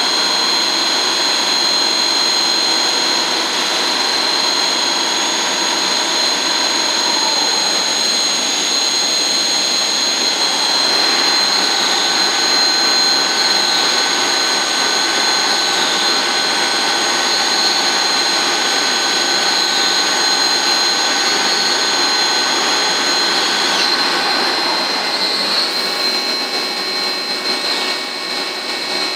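Biglia B470 YMS CNC turn-mill lathe running a machining cycle: a steady, loud whine of several high tones over a hiss. The tones change about a third of the way in and again near the end as the machine moves to a new operation or speed.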